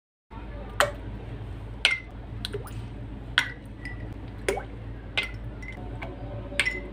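Ice cubes dropped one by one into stemmed glasses of mango drink. Each lands with a sharp clink and a brief glassy ring, about six drops a second or so apart.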